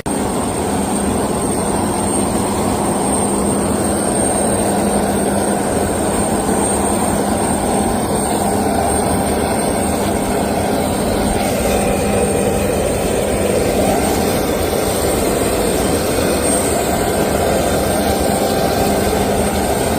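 Private jet's engines running steadily: a constant rushing noise with a thin, high, steady whine.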